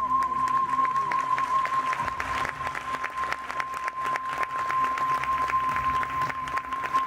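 Arena audience applauding, a dense, steady clapping, as a figure skating performance ends. Music continues underneath, with a steady high tone held throughout.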